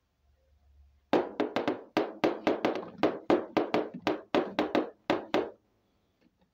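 Hard plastic toy lion figure tapped repeatedly on a tabletop as it is walked along: a quick run of sharp taps, about four a second, starting about a second in and stopping near the end.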